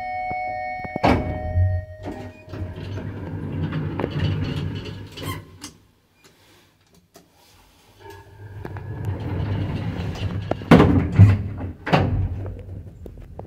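Lift machinery of a 1990 ZREMB passenger elevator: a steady electronic tone cuts off with a heavy clunk about a second in, followed by a few seconds of running mechanism noise. After a quiet spell, the mechanism runs again and ends in several loud clunks as the car's sliding doors shut.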